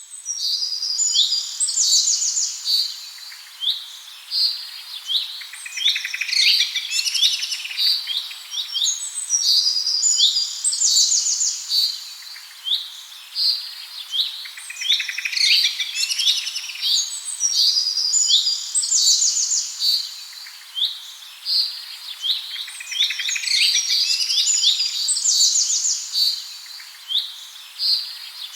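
Small songbirds chirping and trilling together, many quick high notes and rapid trills in bouts that rise and fall every few seconds.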